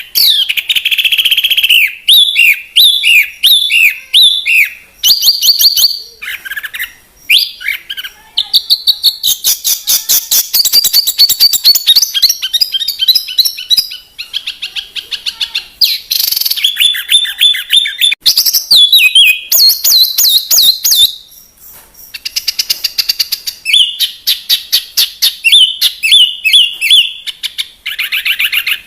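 A songbird singing almost without pause: runs of quick falling chirps, long rapid rattling trills and high whistled notes, with short breaks about a third of the way in and again past two-thirds.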